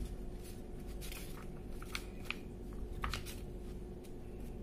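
A few light clicks and rustles from a paper operating manual being handled, over a steady faint hum.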